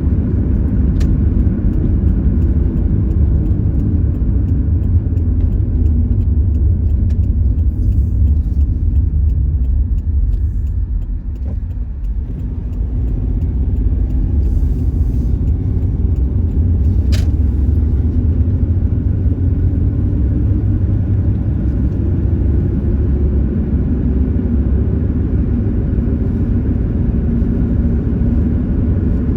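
Subaru driving along a road, heard from inside the car: a steady low rumble of road and engine noise that eases for a moment about 11 seconds in, with a couple of faint clicks.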